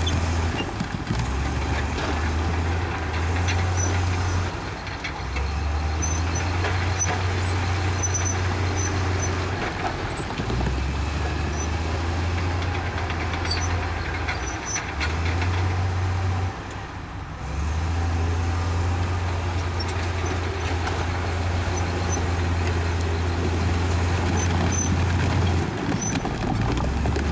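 Bulldozer's diesel engine running under load, a heavy low drone that shifts up and down in pitch every few seconds. It drops back briefly twice, about five seconds in and again around the middle.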